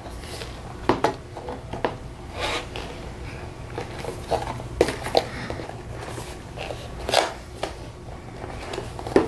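Vinyl gutter pieces being fitted together by hand: plastic scraping and scattered light clicks and knocks as a 90-degree corner piece is slid onto a joiner on a straight section.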